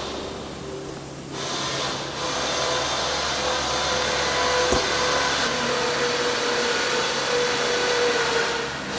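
A steady whirr of an electric motor moving air, with a faint hum. It starts a little over a second in and fades near the end, with a single sharp click about halfway.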